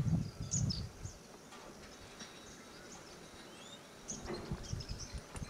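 Open-air ambience with faint, scattered bird chirps. Wind buffets the microphone with low rumbles during the first second and again from about four seconds in.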